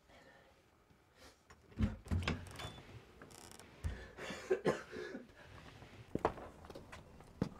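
A man coughing several times in short fits.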